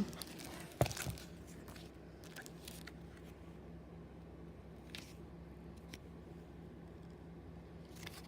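Paper stationery and packaging being handled: a brief crackly rustle about a second in, then a few faint taps, over a steady low hum.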